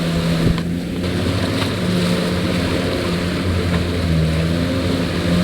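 Jet ski engine running, its pitch shifting up and down a little every second or so, over a steady hiss.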